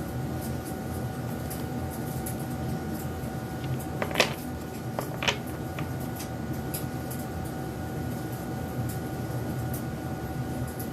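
Steady background hum with a faint constant whine, broken by two sharp clicks about four and five seconds in and a few fainter ticks.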